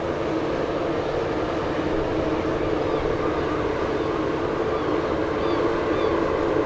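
Steady low drone of a passing ship's diesel engine, with a constant hum and rumble that grows slightly louder. Faint high chirps sound over it in the second half.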